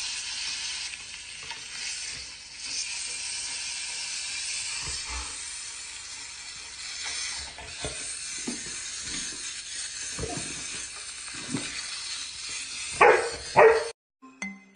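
A dog eating from a steel bowl, with soft scattered licking clicks over a steady hiss, then two loud dog barks close together near the end.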